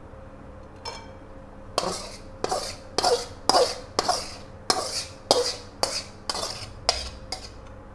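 A metal spoon scraping and knocking the inside of a metal wok to get the last of the thick sauce out. After one faint click there are about a dozen strokes, roughly two a second, starting about two seconds in, and the pan rings briefly after each one.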